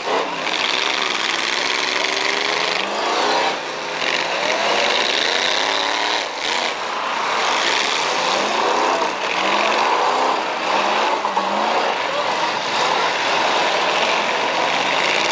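Several demolition derby cars' engines revving, their pitch rising and falling again and again, over a steady wash of noise.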